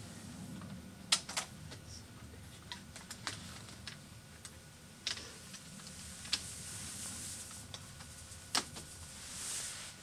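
Scattered sharp plastic clicks and taps as the IBM ThinkPad T40's keyboard is worked back into place in the laptop's frame, with the loudest clicks about a second in and near the end. A brief rustle comes just before the end.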